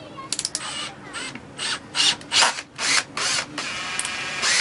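Two Makita 18V cordless hammer drill-drivers, BHP458 and BHP459, driving long screws into a wooden beam. The motors and gears run in short stop-start bursts, with a steadier motor whine near the end.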